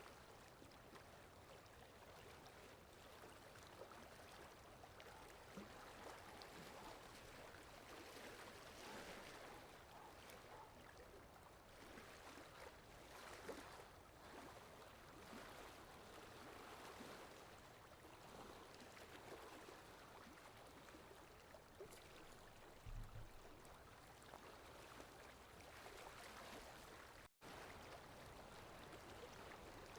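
Faint, steady flowing-water sound effect, like a running stream, with a split-second dropout near the end.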